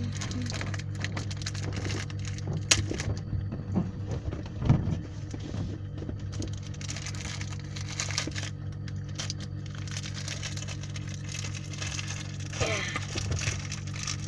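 Crunching and crackling of a crunchy spicy fried macaroni snack being eaten, with irregular short crunches over a steady low hum.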